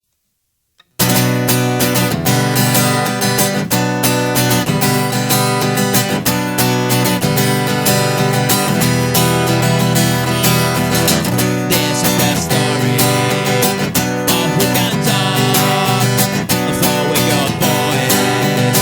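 Acoustic guitar strummed in a steady, driving acoustic punk rhythm, starting about a second in after a brief silence: the instrumental intro of the song.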